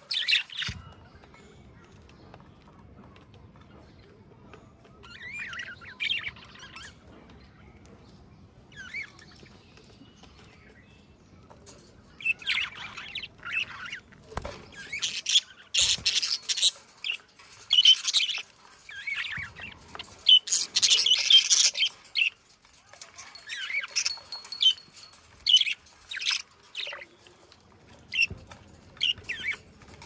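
A flock of budgerigars chirping and chattering in short, high bursts. The calls are sparse at first and become busy and near-continuous from about twelve seconds in.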